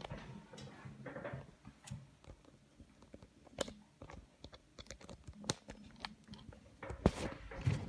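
Handling noise: scattered light clicks, knocks and soft rustling as the camera and the knitting on the table are moved, with a few sharper knocks near the end.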